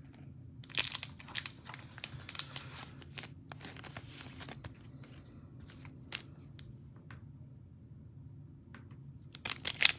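Trading cards being handled and shuffled by hand, with soft rustles and small clicks. Near the end comes louder crinkling and tearing from the foil wrapper of a Panini Mosaic card pack as it is picked up and opened.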